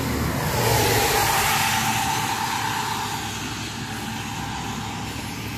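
A road vehicle passing by: its tyre and engine noise with a faint whine swell over about the first second, then slowly fade away.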